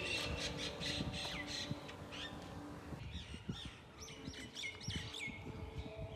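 Several birds calling outdoors: many quick chirps and harsher squawky calls, each sliding sharply down in pitch, overlapping one another.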